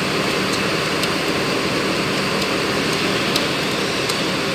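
Steady running noise of an idling vehicle engine, with a few faint, sharp clicks scattered through it.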